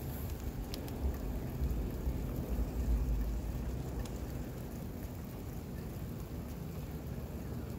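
Rain shower falling, a steady hiss, with a low rumble through the first few seconds that eases off after about four seconds.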